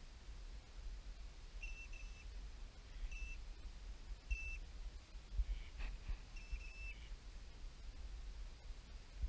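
Faint, short whistled calls from ducks, each flat in pitch and repeated every second or so, some in quick pairs. Underneath is a steady low rumble of wind on the microphone, and one faint knock comes about six seconds in.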